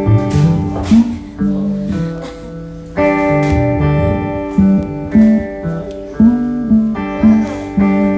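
Solo hollow-body archtop guitar playing: chords are struck a few times, and single low notes move between them.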